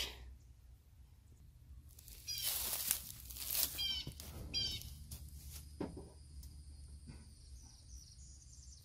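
Rustling and bumping of the phone being handled and set down, with a bird calling in three quick runs of falling chirps. A steady high insect trill sets in midway, with a few light clicks.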